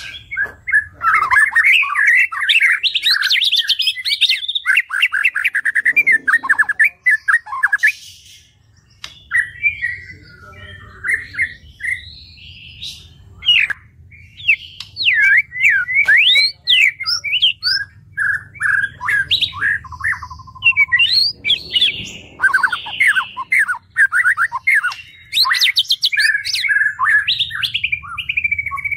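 White-rumped shama singing a long, varied song of rapid whistles, glides, trills and fast rattling notes, in bursts broken by short pauses.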